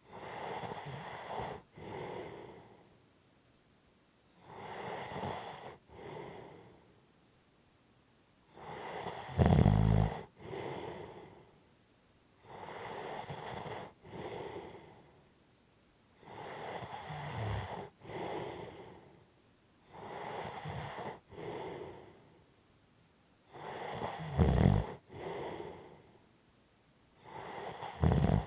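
A person snoring and breathing heavily in a slow, even rhythm, one two-part breath about every four seconds. On some breaths a loud, low rattling snore comes through, about a third of the way in and twice near the end.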